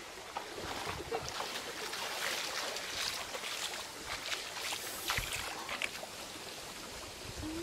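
Shallow stream running over rocks: a steady babble of water with scattered small splashes.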